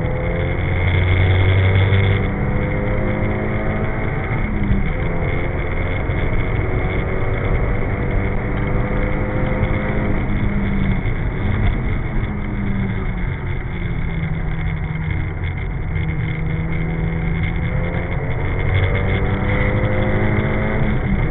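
Nissan Silvia S14's engine pulling hard on a race track, heard from inside the car over steady road and wind noise. Its pitch climbs slowly and drops a few times at gear changes, around five, eleven and fourteen seconds in.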